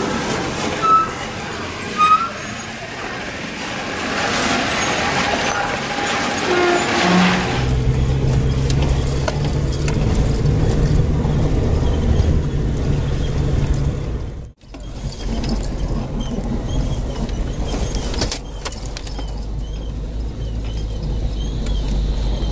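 Vehicle engine drone and road rumble heard from inside a vehicle driving a rough dirt mountain road, with scattered bumps and rattles. The first few seconds hold busier roadside noise with two short sharp sounds, about one and two seconds in, before the engine drone sets in.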